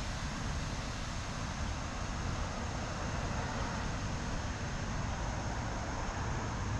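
Steady background noise: an even hiss with a low rumble and no distinct events.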